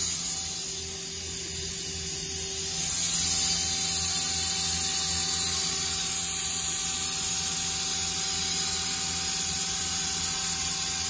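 Mazak QTN-200MY CNC turning center running at speed: a steady mechanical whine over a hiss, with a low hum that pulses evenly. It dips a little about a second in and comes back up around three seconds in.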